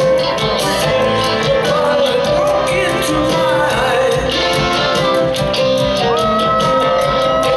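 Live rock band playing: electric guitar and drum kit with a steady cymbal beat, and a male voice singing. A long high note is held near the end.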